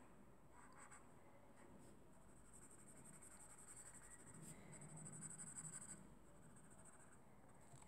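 Faint scratching of a black felt-tip pen scribbling on paper as it fills in dark stripes, a little louder about five seconds in.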